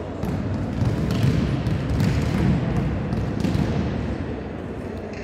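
Several volleyballs being hit and bouncing on the court floor at once, an irregular scatter of sharp slaps and thuds that echo in a large sports hall.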